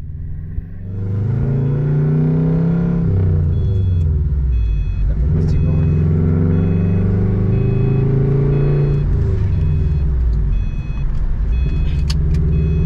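Subaru WRX STI's turbocharged 2.5-litre flat-four engine accelerating through the gears. The revs climb, drop at an upshift about three seconds in, climb again for several seconds, drop at a second shift, then hold steady.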